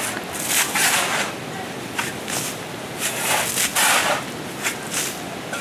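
Shovels scraping into and scooping wet soil and gravel, several rough strokes a second or two apart, as mud is dug out from a doorway.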